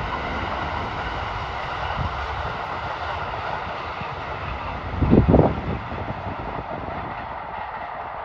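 Distant electric trains running on the line, a steady rolling hiss and rumble of wheels on rail as a six-car Urban Liner limited express passes a two-car local train. A brief low buffet of wind on the microphone about five seconds in is the loudest moment.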